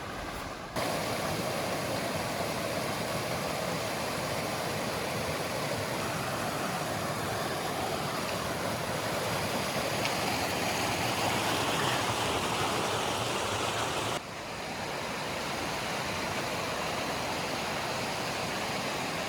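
Steady rush of a mountain creek's flowing water, jumping abruptly louder about a second in and dropping a little about fourteen seconds in.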